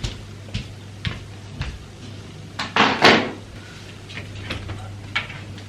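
Shoes clicking on a hard floor, about two steps a second, with a louder rustling scrape about three seconds in, over a steady low hum.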